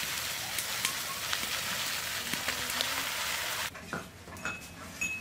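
Food sizzling and crackling in hot oil. It cuts off abruptly about three and a half seconds in, leaving a quieter stretch with a few faint clicks.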